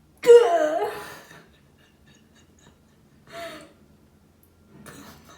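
A cat meowing: one loud meow with a falling-then-rising pitch about a quarter second in, then a shorter, fainter meow about three seconds later.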